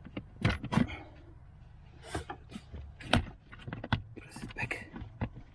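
A series of irregular sharp clicks and knocks of hard plastic car interior trim being handled and pushed into place, the loudest few in the first second and about three seconds in.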